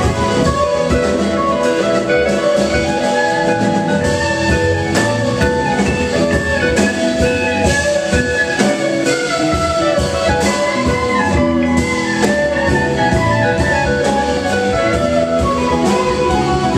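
Live rock band playing an instrumental jam: two electric guitars, bass, keyboards and a drum kit, with no vocals.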